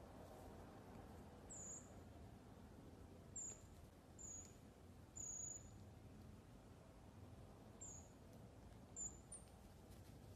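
Common marmosets giving about seven short, high-pitched squeaky calls, spread irregularly, with the one about five seconds in slightly longer, against faint room hiss.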